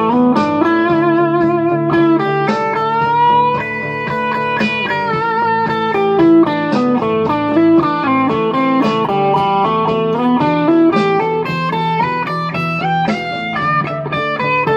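Electric guitar playing a melodic lead line, its held notes bending and wavering.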